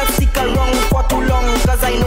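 Dennery segment (bouyon) dance music with a quick, steady kick drum at about four beats a second under a synth melody, with no vocals.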